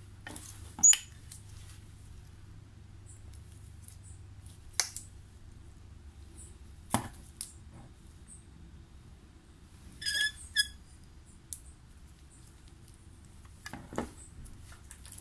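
Scattered clicks and taps of metal dental waxing instruments at work on a splint wax-up, with a loud sharp click about a second in. Around ten seconds in there is a short double clink with a metallic ring. A faint low hum runs underneath.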